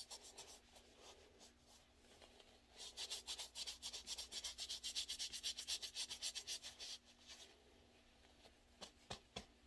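A paper tissue rubbed hard back and forth on the back of a hand to wipe off eyeliner, in quick, even scratchy strokes, several a second. The scrubbing runs from about three seconds in to about seven, with lighter rubbing around it and two short clicks near the end.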